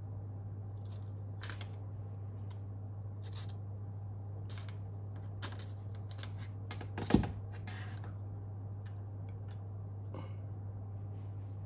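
Small metal and plastic clicks as strips of V-nails are handled and fitted into a plastic underpinner cartridge, with one sharp, louder click about seven seconds in. A steady low hum runs underneath.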